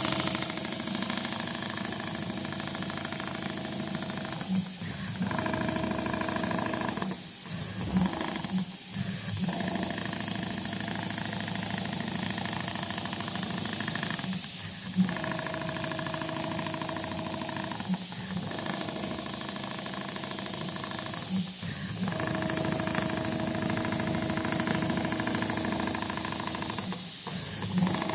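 Computerized rotating-head sewing machine running as it stitches a pattern into leather, a steady mechanical hum with a high hiss over it, briefly dropping out every few seconds as the machine pauses and changes direction.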